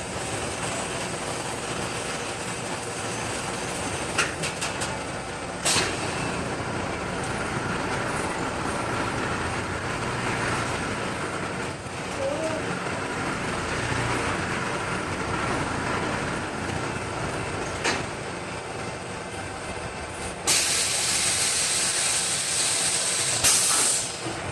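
Steady mechanical running noise with a few sharp clicks, then a loud burst of hissing air lasting about three seconds near the end.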